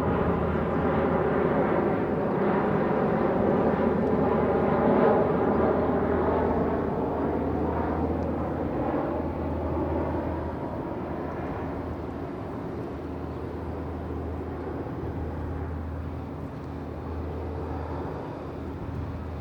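A large engine running steadily with a low hum, loudest about five seconds in and then slowly fading away.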